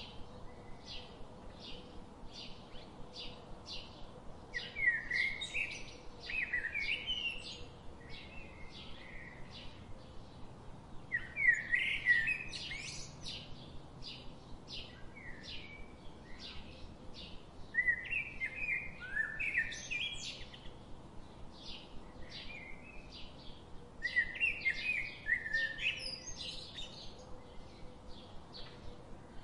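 Small birds chirping in several short bursts of quick, warbling notes, over an even run of short scratches about two a second.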